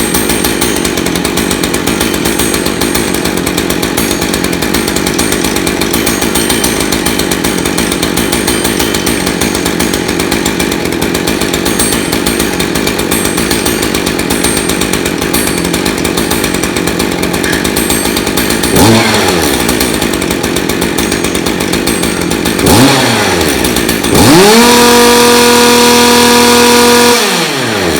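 Stihl MS 201 C-EM two-stroke chainsaw engine idling steadily, then revved up briefly twice and held at high revs for about three seconds before falling back to idle, during an MDG1 computer diagnostic run.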